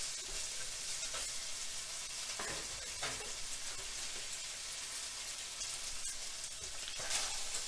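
Ground pork crumbles sizzling steadily in a nonstick skillet, stirred with a spatula at first, with a few brief scrapes and stirs in the first three seconds.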